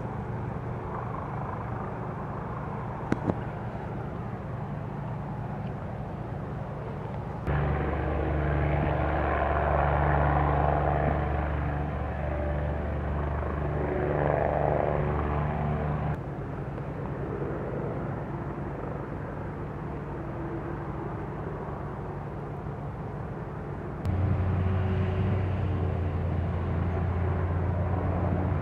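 Helicopter in flight at a distance: a steady drone with a low hum. It gets louder abruptly about seven seconds in, drops back about sixteen seconds in, and gets louder again near the end.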